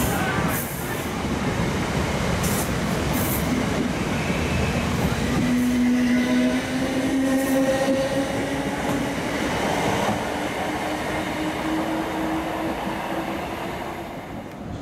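South Western Railway Class 455 electric multiple unit pulling away: a motor whine climbs steadily in pitch over the rumble and clatter of wheels on the rails, then fades near the end as the train draws away.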